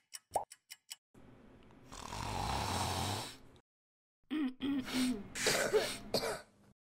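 Several people blowing their noses into tissues: one long nose blow about a second in, then a run of shorter blows and sniffs, some with a voice in them. A few quick ticks at the very start.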